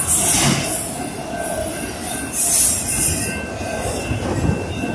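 Freight train of autorack cars passing through a grade crossing: steel wheels running over the rails in a continuous loud rush, swelling louder about two and a half seconds in.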